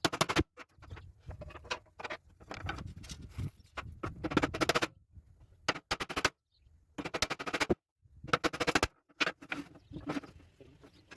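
Bursts of rapid, sharp knocks from work on wooden folding chairs, several strikes in quick succession in each burst, with pauses between the bursts.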